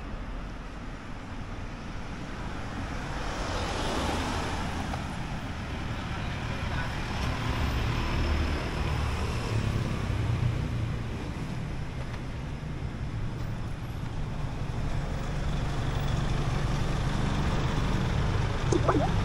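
Street traffic: vehicle engines running and passing, a steady low rumble that swells as vehicles go by. A short high squeak comes near the end.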